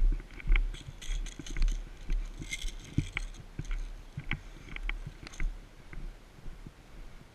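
Irregular footsteps and rustling with small knocks and rattles from carried gear, over a low wind rumble on the microphone.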